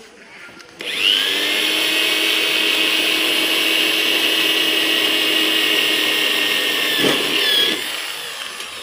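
Handheld electric drill working on the aluminium sheet panel of a satellite dish. It spins up with a rising whine about a second in and runs steadily under load for about seven seconds. Its pitch dips briefly near the end before it winds down.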